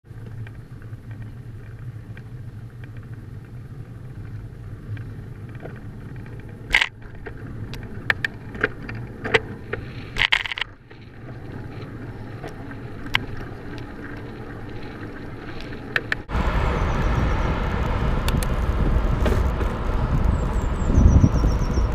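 Scattered clicks and knocks over a steady low hum. About sixteen seconds in, this gives way abruptly to a louder steady rush of wind buffeting and road noise as the bicycle rides along.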